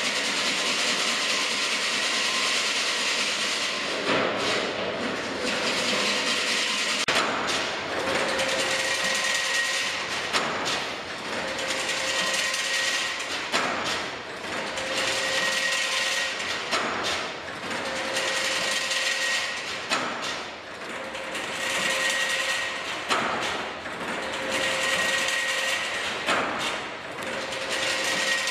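Automatic double-spiral chain link fence machine running: a dense, continuous mechanical clatter. A cycle repeats about every three seconds, a short whine followed by a sharp knock.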